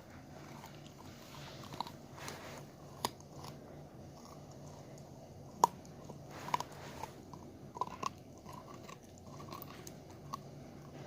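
A dog chewing and crunching a chicken foot, with irregular sharp cracks as the bones break.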